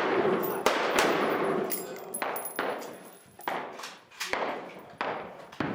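A string of sharp gunshot cracks, about eight in under six seconds, each trailing off in echo.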